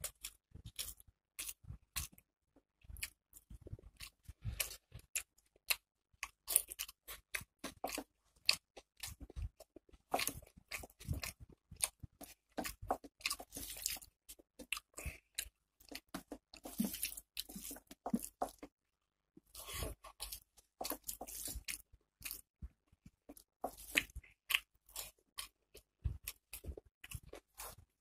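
Close-miked chewing and wet mouth noises of a person eating rice and chicken curry by hand, a run of many short, irregular clicks with a brief pause a little past halfway.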